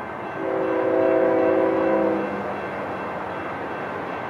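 Locomotive air horn of an approaching BNSF passenger train sounding one long chord of several notes, lasting about two seconds. Steady, even noise follows.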